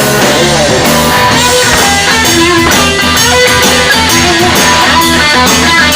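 Blues-rock band playing an instrumental break: an electric guitar lead with sliding, bent notes and held notes over bass and drums.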